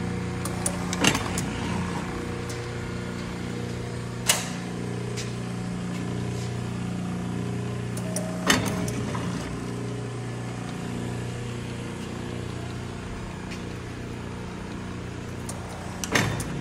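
Belshaw Century C-100 donut machine running, its electric conveyor drive and dropper motors humming steadily, broken by a few sharp clacks.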